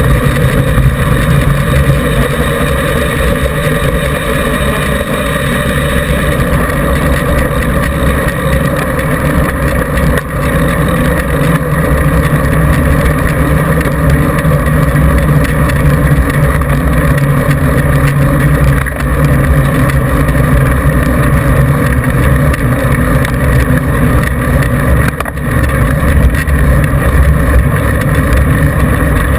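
Mountain bike's knobby front tyre rolling at speed over a gravel track and then a paved road, heard as a loud, steady rumble through a GoPro mounted beside the wheel.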